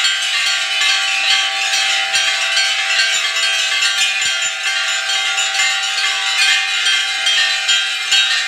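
Many brass temple bells ringing together in a dense, continuous clanging, as they are rung through the maha mangalarati lamp-waving worship.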